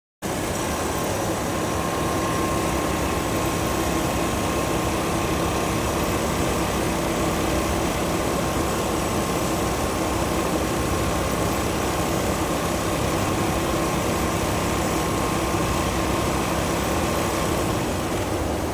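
Automatic duvet sewing machine running: a steady mechanical whir with a thin whine that stops near the end.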